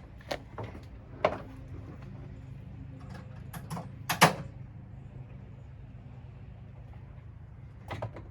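A handful of sharp knocks and clacks from parts of a washing machine being handled and fitted during reassembly, the loudest pair about four seconds in, over a steady low hum.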